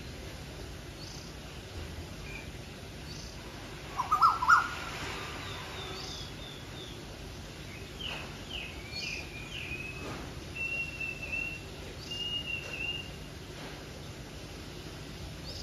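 Birds calling, Asian koels among them: a loud short burst of rising calls about four seconds in, then a run of falling high notes and a few drawn-out whistles from about eight to thirteen seconds, with scattered short chirps throughout.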